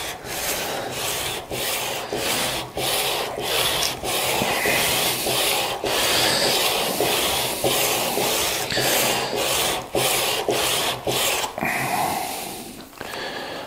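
Flat back of a new steel wood chisel rubbed back and forth on 200-grit sandpaper to flatten it: a rasping scrape in regular strokes, about two a second, stopping near the end.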